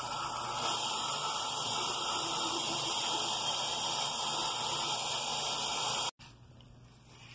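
Water running steadily from a bathroom sink tap, a continuous hiss that stops abruptly about six seconds in.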